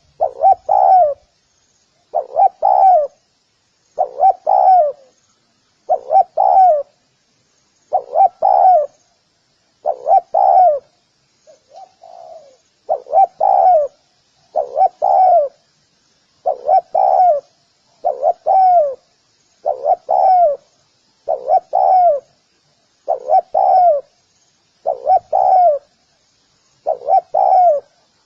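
Spotted dove cooing: a short phrase of two or three quick coos repeated about every two seconds, with one fainter phrase near the middle.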